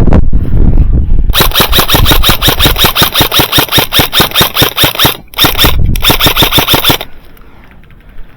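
Airsoft gun firing on full auto: a rapid, even string of sharp shots in one long burst followed by two short bursts, stopping about seven seconds in.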